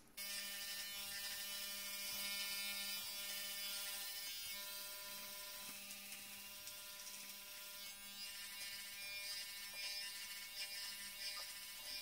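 Remington HC2001 electric hair clipper with a number two guard, switching on just at the start and buzzing steadily while trimming hair around the edges of the head.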